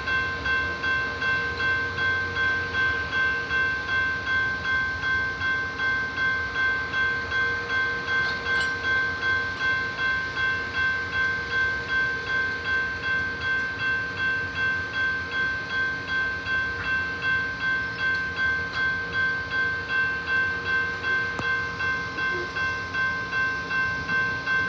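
Railroad grade-crossing warning bell ringing steadily, about two strokes a second.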